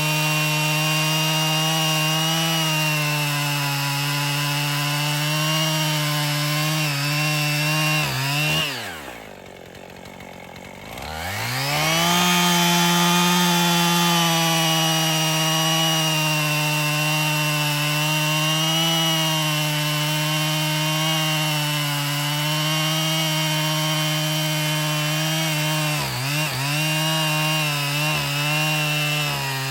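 Husqvarna 55 two-stroke chainsaw engine running at a steady high speed. About eight seconds in the revs drop sharply almost to nothing, then climb back up within about three seconds and hold steady again, with a couple of brief dips near the end.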